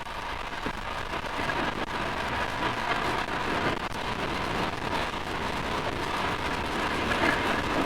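Wind buffeting the microphone of a rider on a Honda CRF450RL dual-sport motorcycle, with the bike's single-cylinder engine running faintly underneath as it cruises.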